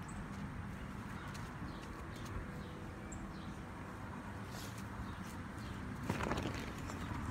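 A steady low outdoor background hum with a few faint high chirps. About six seconds in comes a brief rush of noise as a color guard flag's silk sweeps through the air.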